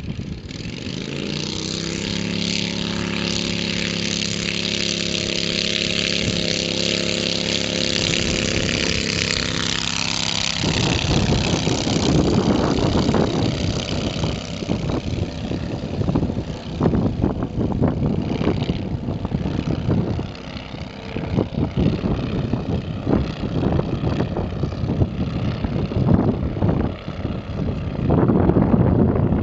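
Home-built Fokker Eindecker replica's engine opening up to full power for the take-off run, its pitch rising over the first couple of seconds and then holding steady. About ten seconds in, the steady engine note suddenly gives way to a gusty, fluctuating rumble as the plane climbs away.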